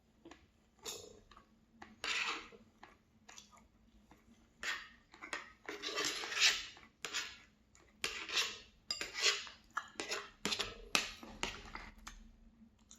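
Cutlery scraping and clinking against a plate in irregular strokes, some short and some drawn out for about half a second.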